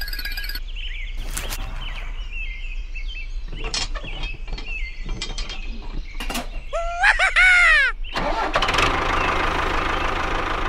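Small clicks and handling noises, then a short loud sweeping sound about seven seconds in. After it, a tractor engine starts about eight seconds in and runs steadily.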